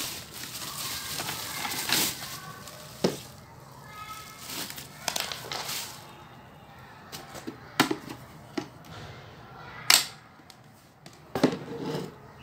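Plastic wrapping crinkling as a triangular LED warning lamp is pulled out of its bag, then scattered clicks and knocks of the hard plastic lamp being handled, the loudest knock near the ten-second mark.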